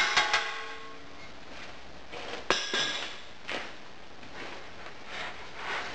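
Metal moulding flask knocked against the steel pan of a sand muller to shake a fresh cast-iron casting out of its sand mould. A sharp clang that rings for about a second at the start, a second hard knock about two and a half seconds in, then a few softer knocks and clatters as the sand breaks away.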